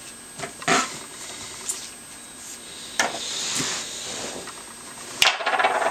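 Small carving tool scraping and cutting pumpkin flesh, with scattered light clicks and knocks, a soft scrape in the middle and a louder scraping clatter near the end.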